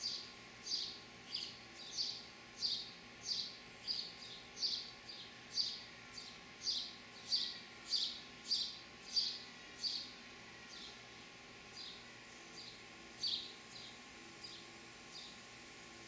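House sparrows chirping: a regular series of short, high chirps, about one and a half a second, that thins out and grows fainter after about ten seconds.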